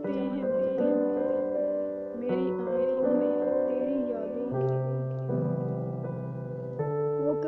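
Slow background music: sustained keyboard chords that change every second or two, with a wavering melody line over them.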